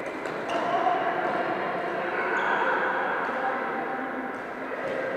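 Echoing sports-hall ambience: a murmur of distant voices with a few faint sharp pops of badminton rackets hitting shuttlecocks on other courts.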